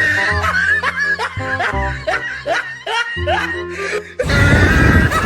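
Laughter in short rising bursts, about three a second, over background music with a steady bass line. About four seconds in it gives way to a louder, noisier sound with a held high tone.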